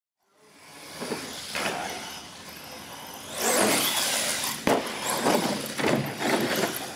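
Radio-controlled monster truck driving and jumping ramps: its motor and tyres run louder from about three and a half seconds in, with several sharp knocks as it hits the ramps and lands.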